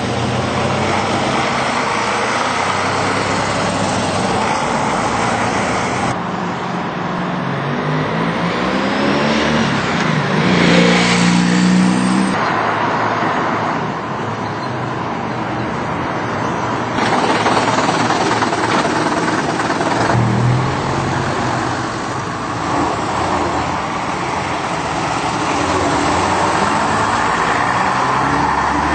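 Classic double-decker bus engines running as the buses drive past, the engine note climbing as a bus accelerates about ten seconds in, with traffic noise around them.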